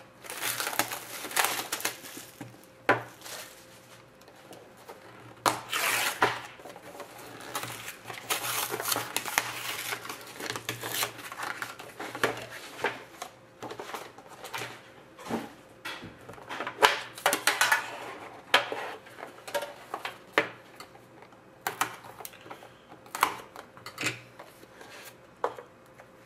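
Plastic shrink wrap crinkling and tearing as it is stripped off a trading-card box, then clacks and scrapes of a metal tin and its lid being handled and opened on a glass tabletop.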